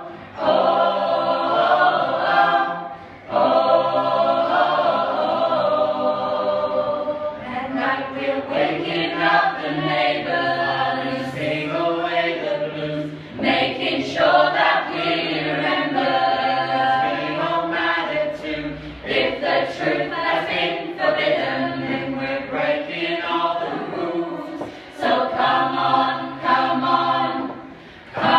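A group of voices singing together a cappella, choir-style, in long held phrases over sustained low notes.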